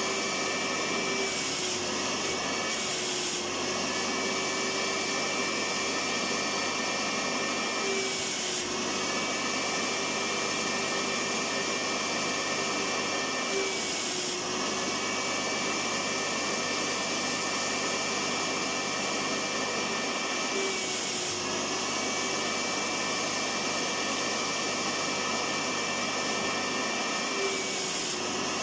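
Electric vacuum cleaner motor running steadily, a dense rushing noise with a steady whine, with a brief hitch every five or six seconds.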